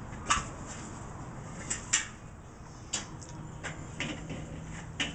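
Wire cooking grate of a charcoal kettle grill being handled in the bowl, knocking and clanking against the kettle in about seven short, sharp hits spread irregularly, the loudest about two seconds in.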